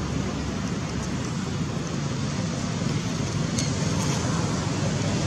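Steady background rumble and hiss, with two faint clicks a little past halfway.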